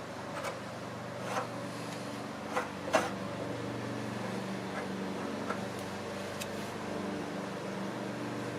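A steady low mechanical hum with a few light clicks and scrapes in the first three seconds, the sharpest about three seconds in, typical of a spreader working plastic padding filler onto an MDF door.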